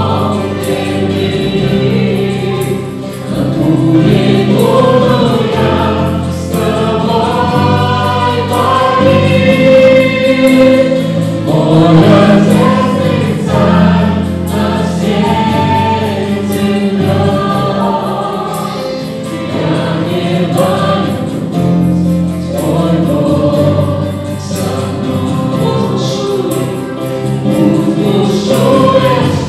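Church worship band playing a song: a group of men and women singing together into microphones over acoustic guitar and electric bass.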